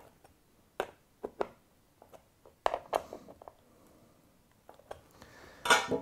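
Hex (Allen) key working the bolts of a Shimano SPD-SL cleat on a road cycling shoe as they are done up tight: scattered small sharp clicks and scrapes of metal on the bolt heads and plastic cleat. Near the end, a louder clatter.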